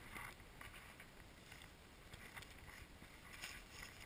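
Near silence, with a few faint rustles.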